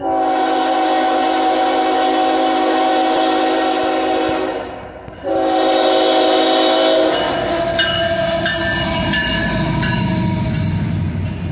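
CSX GE ES44AH diesel locomotive's air horn sounding for a grade crossing: a long blast of about four and a half seconds, a brief break, then a second blast of about two seconds. After the horn stops, the locomotive and its double-stacked container cars pass close by with a steady rumble of engine and wheels on the rails.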